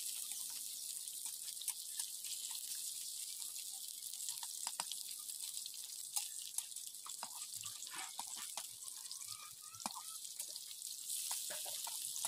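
Leaf-wrapped banana-flower parcels shallow-frying in hot oil in a karai: a steady sizzle with scattered crackles and pops of spitting oil.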